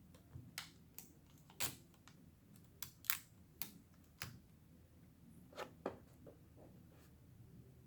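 Irregular light clicks and ticks of a small screwdriver and tiny screws against the metal internals of an opened MacBook Pro during battery-cover removal, about a dozen in all, the sharpest about three seconds in, dying away after about six seconds.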